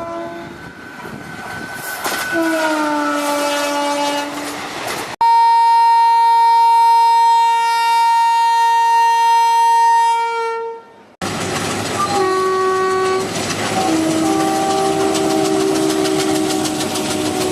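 Indian Railways locomotive horns in separate short clips cut one after another: a multi-note horn falling in pitch, then a loud, steady single-pitch horn blast of about five seconds that cuts off. After a brief gap come more multi-note horn blasts over the clickety-clack of train wheels on rail joints.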